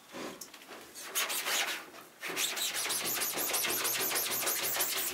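Rubbing by hand on the mesh of a freshly washed-out screenprinting screen to clear the open areas of the stencil. A short burst of rubbing about a second in is followed, from about two seconds in, by rapid, even back-and-forth strokes, roughly five a second.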